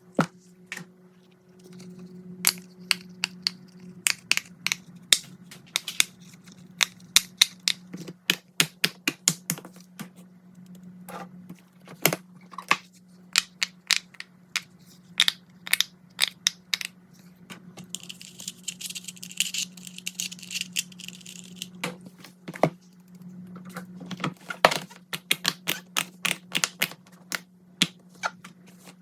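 Fidget toys being handled: an irregular run of sharp plastic clicks and taps, with a rustle lasting a few seconds about two-thirds of the way through, over a low steady hum.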